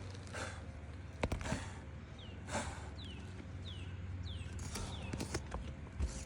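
A few sharp knocks, the loudest about a second in and again near the end, with a bird repeating a short falling whistle about five times in the background.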